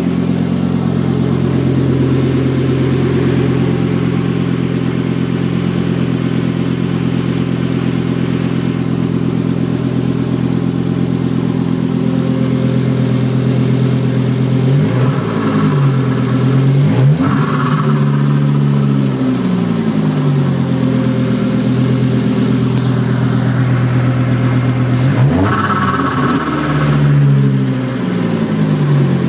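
Volvo 2000 V70R 2.3-litre turbocharged inline five-cylinder engine idling loud through an open downpipe, blipped by hand at the throttle: revs rise and fall sharply three times, twice close together about halfway through and once more near the end.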